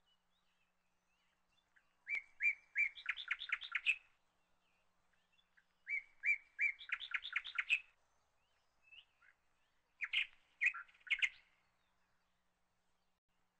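A songbird singing three short phrases, each a couple of seconds of notes that quicken into a rapid trill, with pauses between them.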